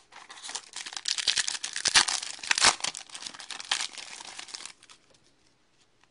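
A hockey card pack's foil wrapper being torn open and crinkled by hand: a dense crackle of many sharp crinkles that goes on for about four and a half seconds and then stops, leaving only a few faint clicks.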